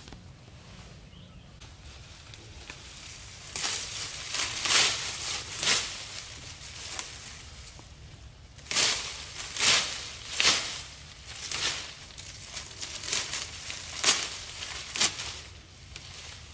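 Leafy branches and tall grass rustling, a series of about a dozen sharp swishes as a hand grabs, pulls and shakes them, starting a few seconds in.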